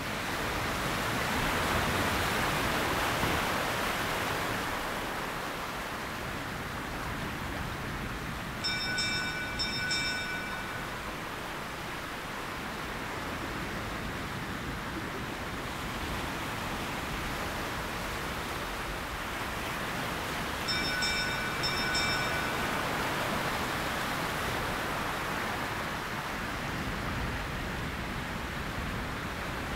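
Harbour ambience: a steady wash of surf that slowly swells and ebbs, with a bell ringing in a short cluster of strokes twice, about twelve seconds apart.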